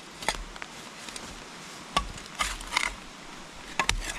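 Scattered snaps and crunches of dry sticks and leaf litter being handled and broken, with a few short scrapes of a saw blade digging into the forest floor about halfway through.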